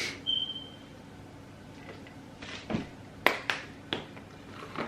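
Kitchen handling sounds from seasoning containers: a brief high ping just after the start, then a handful of sharp clicks and taps about three seconds in.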